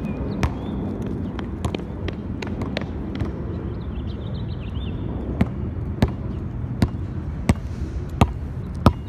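Basketball bouncing on a concrete court: a regular run of sharp smacks about every two-thirds of a second through the second half, getting louder near the end, over steady outdoor background noise.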